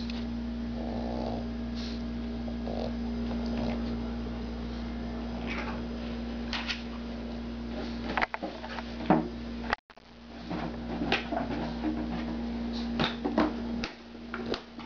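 A Boston Terrier playing with an empty plastic gallon jug, pushing and knocking it about on carpet: scattered sharp plastic knocks and clatters, busier in the second half, with short sounds from the dog in the first few seconds. A steady hum runs underneath.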